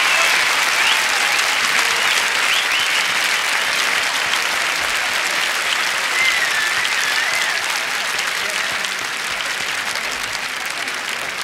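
Theatre audience applauding, with a few whistles, one wavering whistle about six seconds in; the applause slowly dies down toward the end.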